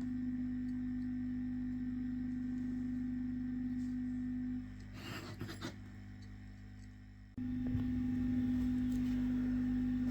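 Steady electrical hum from a hot air rework station's blower. It drops out for about three seconds in the middle, with a brief rustle, then comes back abruptly.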